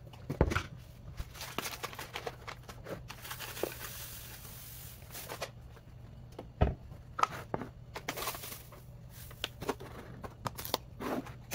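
Household items being handled: scattered knocks and clatters of containers and packaging, with plastic crinkling, over a steady low hum. A soft hiss runs for a couple of seconds near the middle.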